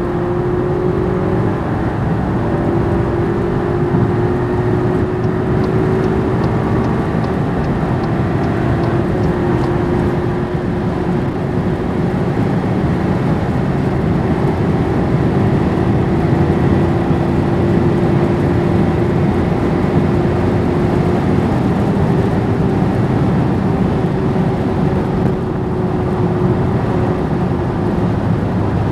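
Skoda Superb 4x4 running at high speed: a steady engine drone that rises and dips slightly in pitch, over heavy tyre and wind noise.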